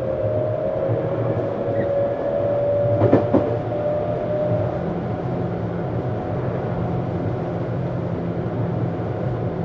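Interior running sound of a Tokyu 7700 series electric train car: steady rumble under a motor tone that edges up slightly in pitch, then fades about five seconds in. Two sharp knocks about three seconds in.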